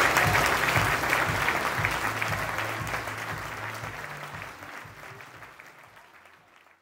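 Audience applauding, a dense patter of many hands clapping that fades away steadily to silence by the end.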